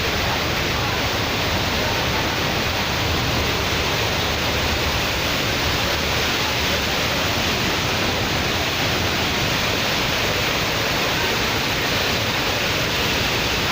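Waterfall swollen by days of heavy monsoon rain: a steady, even rush of falling water.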